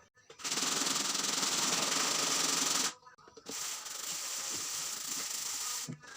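A steady hissing noise in two long stretches, the first louder, each cutting off abruptly.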